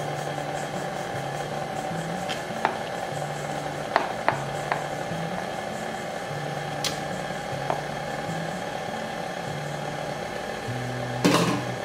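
KitchenAid stand mixer motor running steadily while melted butter is poured in, with a few light clicks and taps of a bowl against the mixer; the loudest knock comes near the end.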